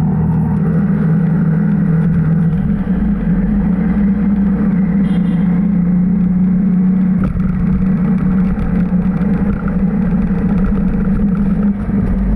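Road vehicle's engine running steadily while driving, a loud continuous hum with road rumble; its pitch steps up slightly about two and a half seconds in.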